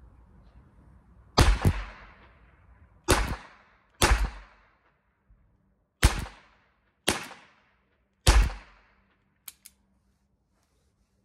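Major Eagle revolver fired six times, one to two seconds apart, each shot sharp and fairly loud with a short echo. The first is fired single action with the hammer cocked. Two faint clicks follow near the end.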